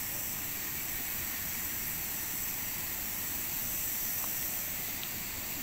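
Steady outdoor hiss, even throughout, with no distinct sound standing out.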